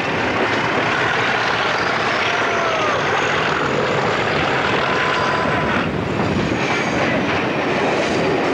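Class 37 diesel locomotive's English Electric V12 engine running under power, heard from an open window of the train behind it, with wind and wheel noise. A high turbocharger whistle rises in pitch over the first few seconds. From about six seconds in, the wheels clatter over pointwork.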